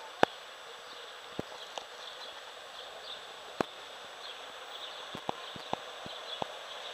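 A steady wash of floodwater running over a street, with about seven sharp, irregular taps on top. The strongest tap comes just after the start and a cluster comes near the end.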